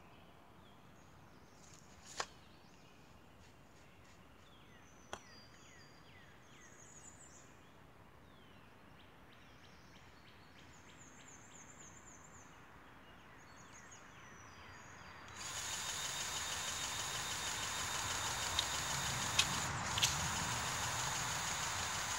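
Birds chirping, with two sharp clicks early on. About fifteen seconds in, a powered grease gun starts up with a loud, steady, hissing mechanical buzz while it pumps grease into the crawler dozer's fittings.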